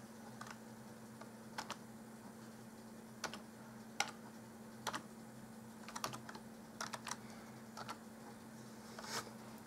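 Computer keyboard keys tapped one at a time as a password is typed: about ten slow, irregularly spaced keystrokes. A faint steady hum runs underneath.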